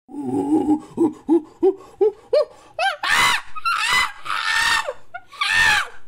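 Chimpanzee calls used as an ape-man creature sound effect: low hoots, then a run of short calls that climb higher and come faster, building into loud screams from about three seconds in.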